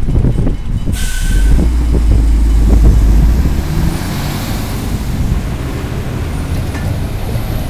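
Diesel engine of a tipper semi-truck pulling away and passing close by, running hard at first and then easing off. A hiss of air sets in about a second in.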